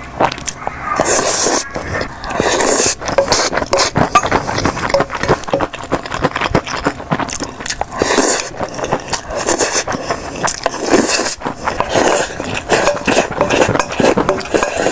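Close-miked eating: chewing and mouth sounds, a dense run of irregular clicks and short wet bursts.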